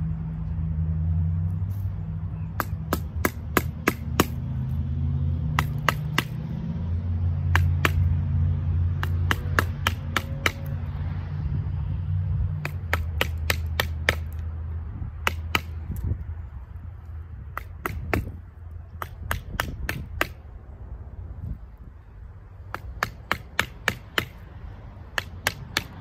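Batoning a knife through a branch: a wooden baton knocks on the steel spine of the blade as it is driven into the stick against a wooden block, in quick runs of several strikes with pauses between. A low engine rumble runs underneath and fades about two thirds of the way through.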